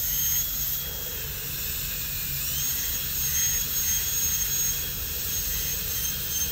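High-speed air-turbine dental handpiece whining as its bur cuts depth grooves into a plastic typodont tooth for a crown prep. About a second in, the pitch sags for about a second as the bur bears on the tooth, then climbs back to a steady high whine.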